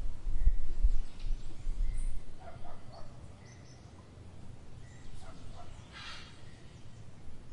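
Outdoor garden ambience. A low rumble runs for about the first two seconds, with faint short bird chirps throughout and a few brief distant animal calls, the clearest about six seconds in.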